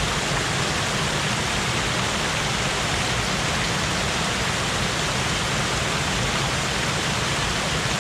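Steady rush of a small waterfall pouring over a weir, running high with floodwater after days of heavy rain.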